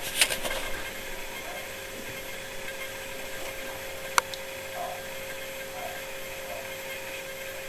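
Steady room hum with a low hiss, with a brief rustle and clicks near the start and one sharp click about four seconds in.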